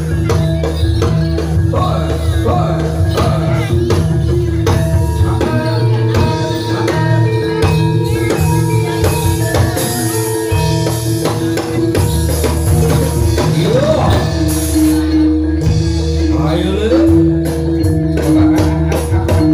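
Javanese gamelan music for a jathilan horse dance: drums beating a steady rhythm under sustained, ringing metal-percussion notes, with jingling percussion on top.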